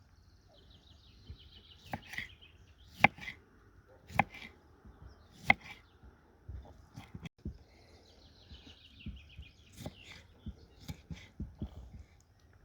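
Knife chopping on a cutting board: irregular sharp knocks, roughly one a second, the loudest about three and five and a half seconds in. A small bird trills twice, early and again later on.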